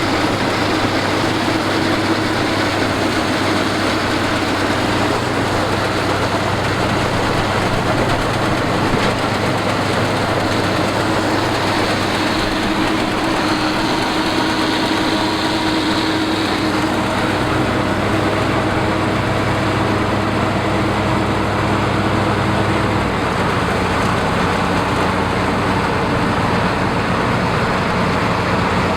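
Harvesting machine engine running steadily and loudly, its pitch shifting slightly partway through.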